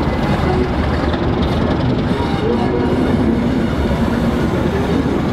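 Prototype HST coaches rolling slowly past, their wheels rumbling on the rails over a steady low diesel engine hum.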